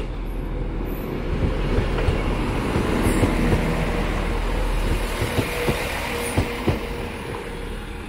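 Northern Class 195 diesel multiple unit running into the platform and passing close by as it slows, loudest a few seconds in. Near the end its wheels click over rail joints in pairs, over a faint steady whine.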